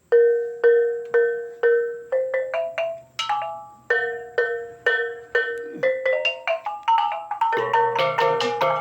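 Kulintangan gong-chime struck with beaters, playing the opening phrase of a Dusun Kimaragang dance piece: single ringing notes about every half second with a quick run, the phrase played twice. Near the end the lower gongs join and the ensemble thickens.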